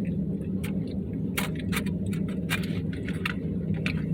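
Steady low hum of a truck engine idling, with a quick scatter of sharp clicks and clinks from utensils working in a plastic takeout food container.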